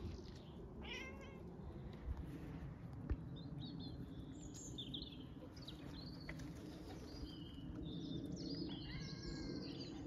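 Small birds chirping in short, high calls on and off throughout, with a brief cat meow about a second in.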